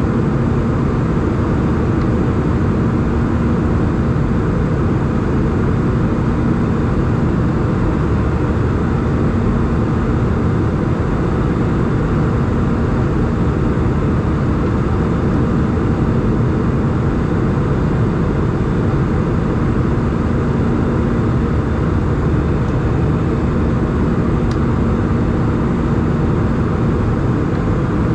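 Steady cabin noise of an Airbus A320 in flight, heard from a window seat over the wing: an even rush of engine and airflow noise with a faint steady hum underneath.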